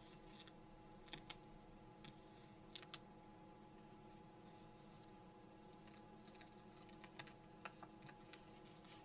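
Near silence: faint, irregular clicks and taps in small clusters over a steady low electrical hum.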